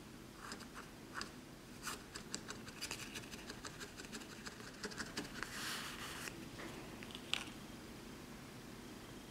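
A felting needle stabbing wool packed inside a paper tube: a fast run of crisp, scratchy pokes, several a second, with a brief rustle of the wool. A single sharper click comes about seven seconds in.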